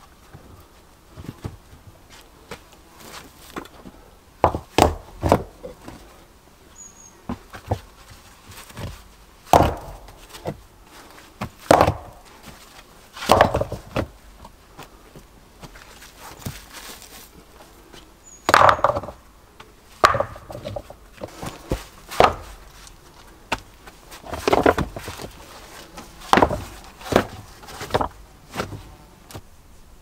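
Irregular wooden knocks and thuds, about ten loud strikes spaced a second or more apart with smaller taps between, as wood is worked by hand.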